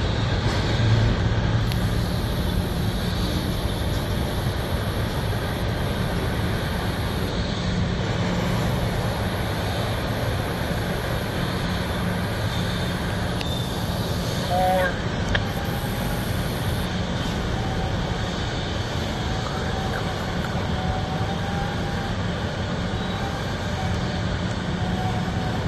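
CSX mixed freight train's boxcars and tank car rolling past, a steady rumble of wheels on the rails. A faint wavering squeal comes and goes in the second half.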